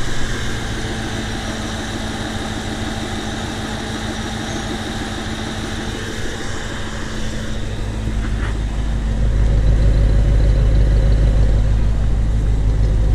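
A 1993 Corvette's LT1 V8 idling smoothly on all eight cylinders, its misfire cured by putting the crossed spark plug wires for cylinders 6 and 8 back in the right order. About eight seconds in the engine sound grows louder and deeper and holds there.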